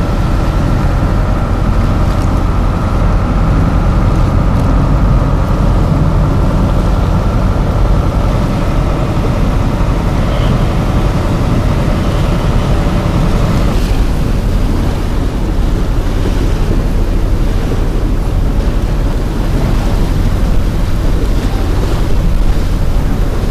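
Moving tour boat: dense, steady rumble of the boat's engine, water rushing past the hull and wind buffeting the microphone, with a steady hum that stops a little past halfway through.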